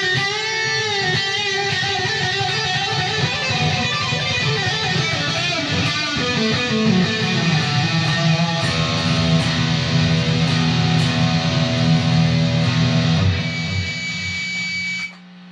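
Harley Benton Fusion II electric guitar on its neck humbucker, played with a lead tone through a Mesa/Boogie JP2C amp and a 4x12 cab loaded with V30s. A lead line with string bends and vibrato gives way to sustained notes and chords, then cuts off abruptly near the end.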